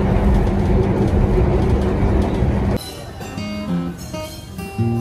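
Steady rumble and hum of a passenger train running, heard inside the carriage. About three seconds in it cuts off suddenly, and soft instrumental music of single sustained notes follows.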